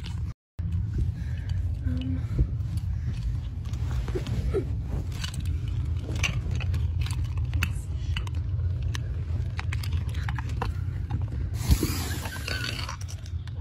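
A steady low hum with scattered sharp knocks and clicks through it. Two knocks stand out, one a couple of seconds in and one near the end, and a short rush of hiss follows the second.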